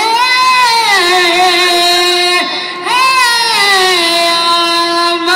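A young male singer's amplified voice sings long, drawn-out notes in two phrases. Each phrase opens with a rising swoop, then the pitch bends and falls before settling on a held tone.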